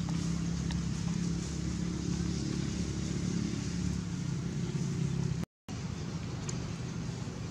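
Steady low engine hum with a constant drone, dropping out for a moment about five and a half seconds in.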